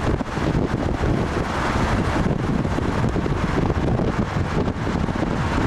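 Wind buffeting the camcorder microphone over the steady rumble of a moving road vehicle.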